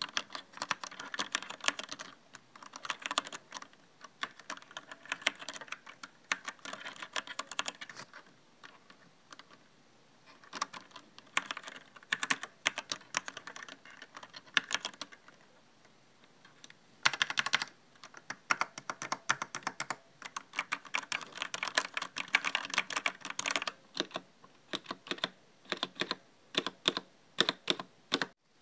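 E-Element mechanical gaming keyboard with red (linear) switches being typed on. The keystrokes come in quick runs with short pauses between them, the longest about eight seconds in.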